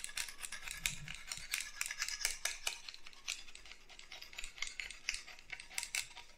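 Knife blade scraping and shaving hardened polyurethane expanding foam off the barrel of a foam applicator gun: a quick, irregular run of short scratchy strokes and small clicks.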